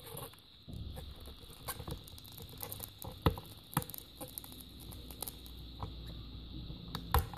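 Transformer soldering gun with a homemade copper-wire tip switched on and heating a chip's pins: a low transformer hum starts with a click about a second in, while the solder and flux on the pins crackle and sizzle in irregular clicks. The gun switches off with a louder click near the end, as the pins melt free.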